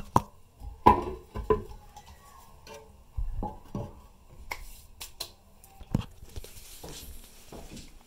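Ceramic toilet tank lid of a 2002 Eljer Savoy being set back onto the tank: a series of sharp knocks and scrapes of china on china, the loudest about a second in, with handling noise in between.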